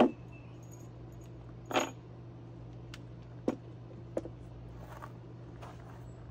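Wooden board set down on a plywood crate panel with a loud thump, then another thump a couple of seconds later and two short, sharp knocks of wood about a second apart.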